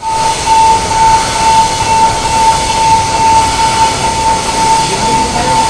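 Vertical slotting machine running, a steady high whine over a mechanical rumble.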